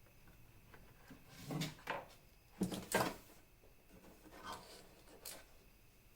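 Handful of separate knocks and clunks of hard parts being handled and set against each other, the two loudest close together near the middle.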